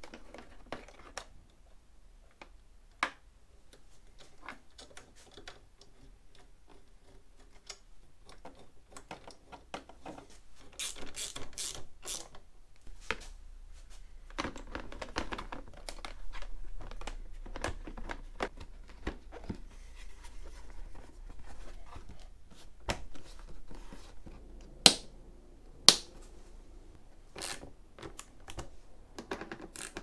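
Hands working on motorcycle wiring: scattered small clicks, rattles and rustling of plastic and cable, with two sharp clicks a second apart near the end.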